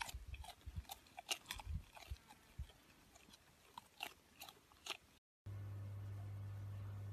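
Irregular crunching clicks and snaps, like chewing, a few each second for about five seconds. After a brief dead gap, a steady low hum.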